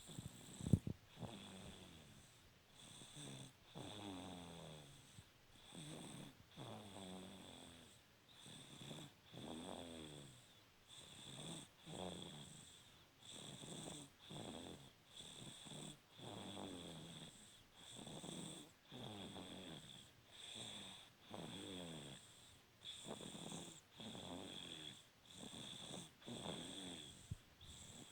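Slow, regular snoring: each breath in and out is drawn as a rasping snore with a falling pitch, about one breath every two seconds.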